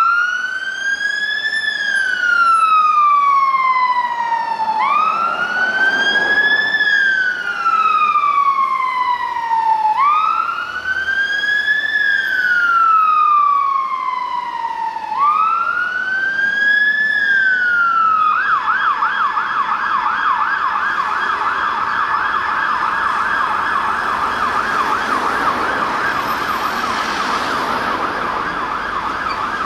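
Volvo fire engine's electronic siren sounding a slow wail, four times, each rising quickly then falling slowly over about five seconds. About two-thirds of the way through it switches to a fast yelp, the vehicle running on blue lights to an emergency call.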